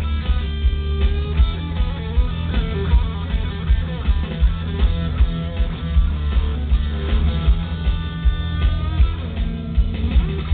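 Live rock band playing: electric guitars and bass over a steady drum beat that hits about twice a second.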